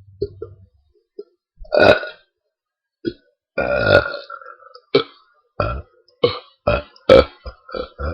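A person burping on purpose: a long, loud burp about two seconds in and another about four seconds in, then a quick string of short burps, about two a second.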